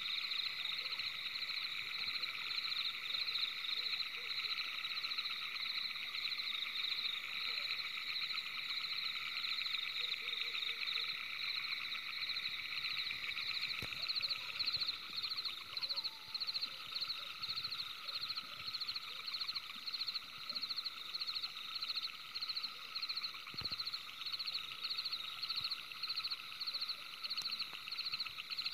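Dense night chorus of calling animals: high, fast trilling that carries on throughout. From about halfway it turns into a regular pulsing beat of a few pulses a second.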